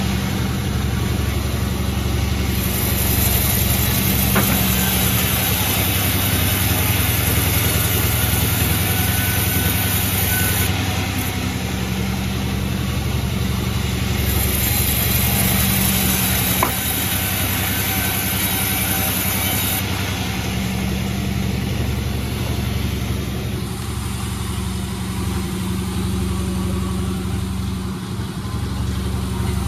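Sawmill machinery running steadily, a continuous low motor hum with a noisy hiss over it.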